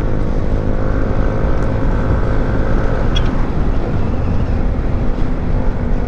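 Wind rushing over the microphone of a moving Yamaha NMAX scooter at about 65 km/h, with the scooter's engine running steadily under it and a faint steady whine.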